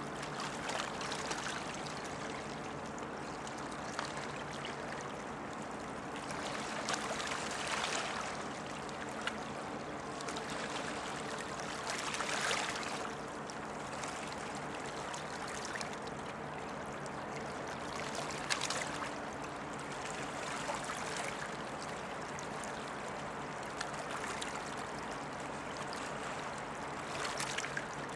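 River water washing and lapping against the stony bank, swelling up every few seconds, over a steady low hum from the passing container ship.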